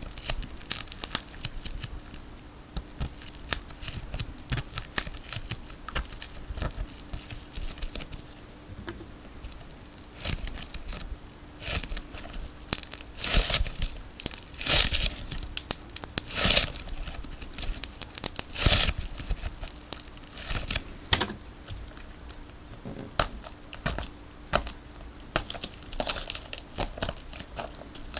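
Adhesive tape being peeled and ripped off a tape ball, with sticky crackling and crinkling of the tape layers and a few louder rips about halfway through.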